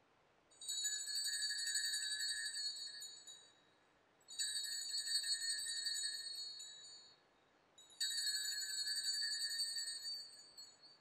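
Altar bells shaken in three jingling rings of about three seconds each, marking the elevation of the consecrated chalice at Mass.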